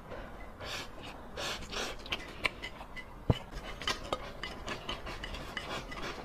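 Spicy instant noodles being slurped off chopsticks, with several airy sucking bursts in the first two seconds, then wet chewing and small clicks. A single sharp tap about three seconds in is the loudest sound.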